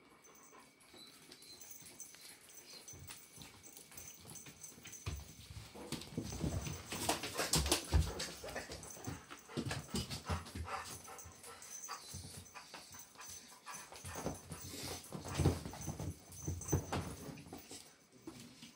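German shepherd whining and whimpering in short, broken calls, excited while the kitten is played with. Soft knocks and scuffles come from the kitten jumping on the sofa.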